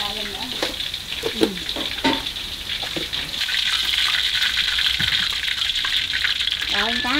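Hot oil sizzling in a wok as fish steaks fry, getting louder about halfway through, with a few light knocks of chopsticks and plate against the pan.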